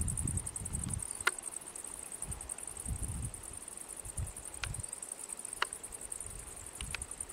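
Insects chirring steadily in the fields, a continuous high-pitched pulsing trill. Low uneven rumbles on the microphone and a few faint sharp clicks come and go over it.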